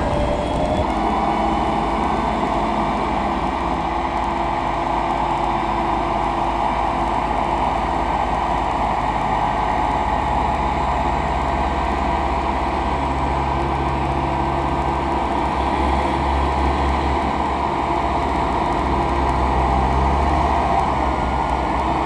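Tractor engine running steadily, with a steady mechanical whine over a low drone that swells in the second half.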